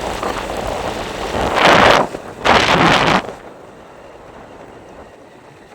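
Wind blowing over the microphone, with two loud gusts in the middle, each lasting under a second, after which it drops to a softer rumble.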